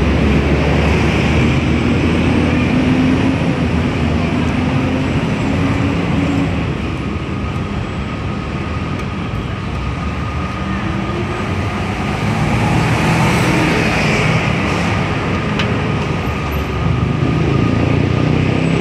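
Steady street traffic noise: engines of passing motor vehicles running and rising and falling as they go by.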